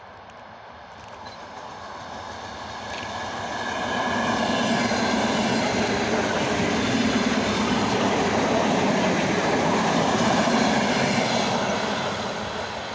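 Six-car ER9M electric multiple unit passing at speed: its noise grows louder over the first few seconds as it approaches, stays at its loudest for about seven seconds while the cars run by, then fades as it draws away.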